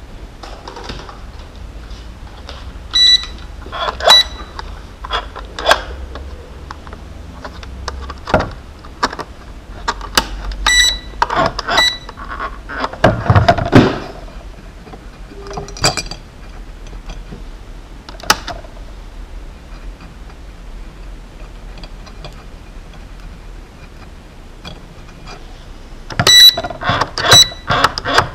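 Hands handling a micro quadcopter and its small battery connector: scattered clicks and taps, with a louder stretch of fumbling about halfway through. Several short, high-pitched beeps or chirps are mixed in, in pairs near the start, the middle and the end.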